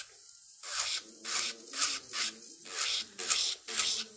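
Electric nail drill with a ceramic bit at medium speed grinding down a gel nail extension, in back-and-forth strokes of about two a second, each a gritty hiss, over the motor's faint steady hum. There is a brief pause about half a second long at the start.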